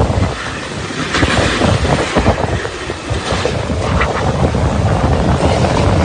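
Hurricane-force wind gusting hard and buffeting the microphone, with sheets of wind-driven rain and spray; the gusts grow gradually louder toward the end.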